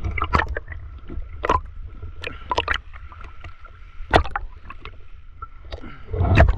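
Sea water splashing under swimming strokes: irregular splashes about every second, loudest at about four seconds in and near the end, over a low rumble.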